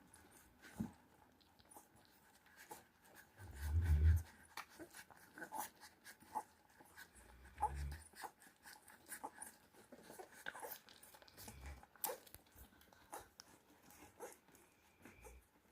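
Young Cane Corso puppies stirring, with faint short squeaks and scattered small clicks. Two dull low thumps come about four and eight seconds in.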